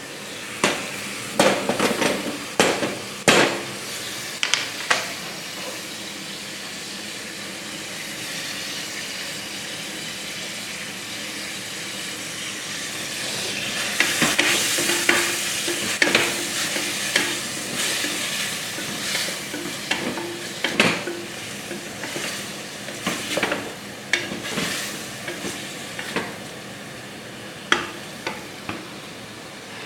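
Chicken and onions frying in ghee in a pan, a steady sizzle, while a spoon stirs and knocks against the pan, with a cluster of sharp clanks in the first few seconds. The sizzle gets louder about halfway through, and the spoon strikes come again through the second half.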